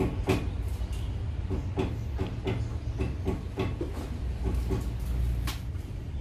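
Hands splashing and rubbing water over a wet long-haired cat in a stainless steel sink: irregular wet splashes and knocks, several a second, over a steady low rumble.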